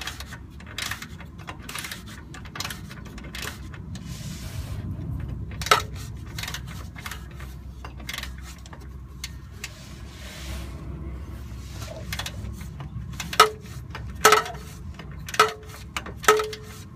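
Hand tools and metal parts clicking and clinking, with a string of small clicks and, in the second half, several sharp metallic clinks that ring briefly.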